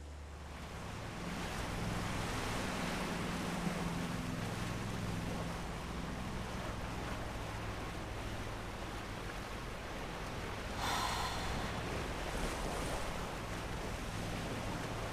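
Wind and sea noise on a cruise ship's open deck, with a low steady hum from the ship underneath. A brief louder gust of wind comes about eleven seconds in.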